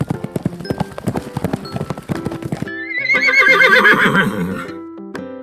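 Horse hooves galloping in a rapid run of clip-clops, then a horse whinnying loudly with a shaky, wavering pitch for about two seconds.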